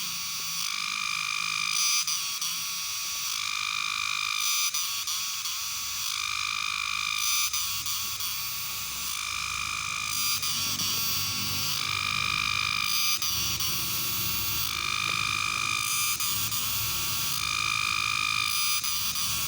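Cicada calling: a continuous, high-pitched ringing drone that swells and eases in a regular cycle about every two and a half seconds.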